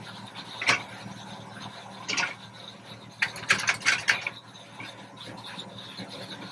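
Kubota L6060 tractor's four-cylinder diesel running steadily, heard from inside the cab, with sharp mechanical clacks as the rear snowblower's chute is swung around on its hydraulic rotator and ring gear: one clack about a second in, a couple more near two seconds, then a quick run of several around three to four seconds.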